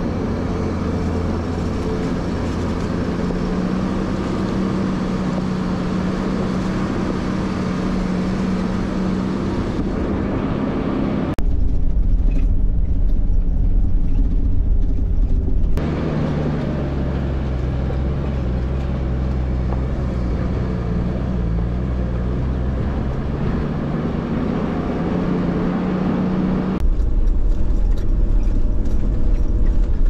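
Toyota LandCruiser Troop Carrier driving up a rocky shale track, its engine running steadily under load and its tyres rolling over stones. Twice the sound switches abruptly to a louder, deeper rumble with little treble: about a third of the way in for a few seconds, and again near the end.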